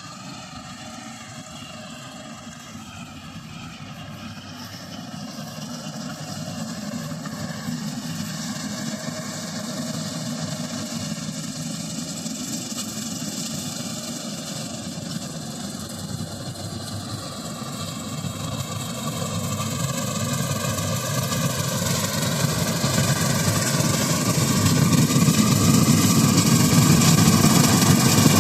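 Preet 849 combine harvester's engine and machinery running, growing steadily louder, with a pitch that wavers as it goes.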